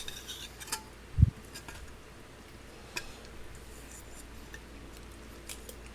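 Faint scattered clicks and light clinks, with one short low thump a little over a second in.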